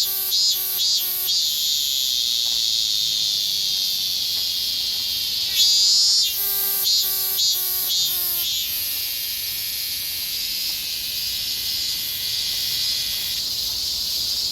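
Higurashi (evening cicada) calling: trains of quick repeated pitched notes that slow and drop in pitch at the end. One call trails off about a second in and another runs from about six to eight seconds in, over a steady high-pitched cicada drone.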